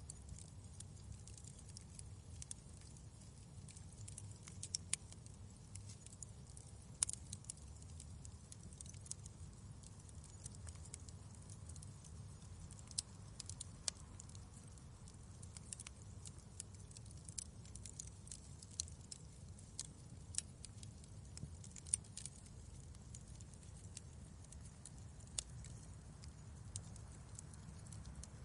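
Wood fire crackling in a fireplace: irregular sharp pops and snaps over a low, steady rumble of the flames, with two louder pops, one about a quarter of the way in and one about three quarters of the way in.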